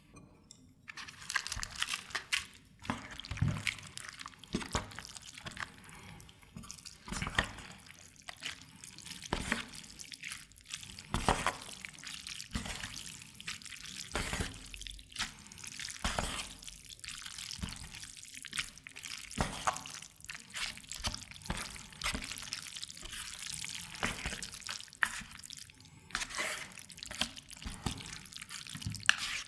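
Wooden chopsticks mixing thick ganjjajang noodles through black bean sauce in a plastic takeout bowl: wet, sticky squelching with irregular quick clicks and scrapes, starting about a second in.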